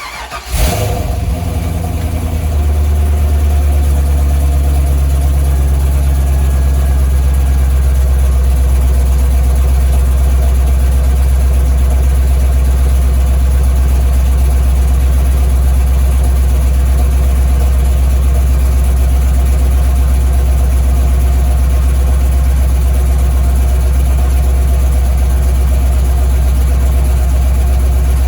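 C5 Corvette Z06's LS6 V8 starting: it catches with a brief flare in revs within the first second, then settles about two seconds in into a steady, loud, deep idle.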